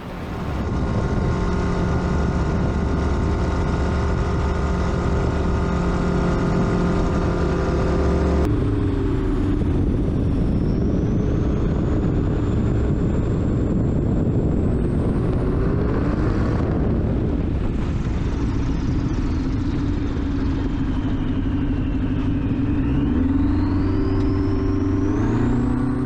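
Light airplane's piston engine and propeller running in flight: a steady drone, then a cut about eight seconds in, after which the engine note falls and rises several times as power is changed, climbing near the end.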